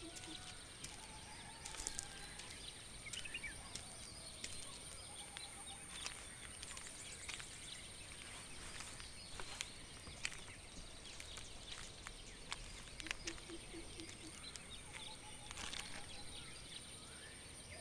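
Quiet tropical garden ambience: a steady high-pitched insect drone, short bird calls now and then, and scattered light ticks and clicks.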